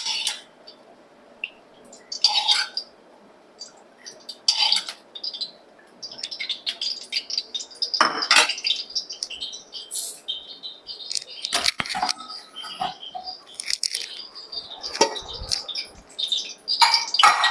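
Metal kitchen utensils clinking and scraping: a spoon knocking against steel pots and small vessels. A few separate clinks come first, then a busier run of clinks and scrapes about six seconds in.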